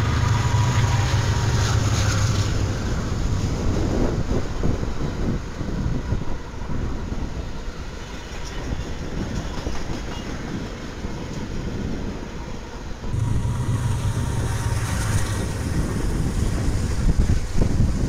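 Several BNSF diesel-electric freight locomotives passing close by, their engines running under load with the rumble of wheels on rail. The low engine drone eases off after a couple of seconds and comes back loud about thirteen seconds in.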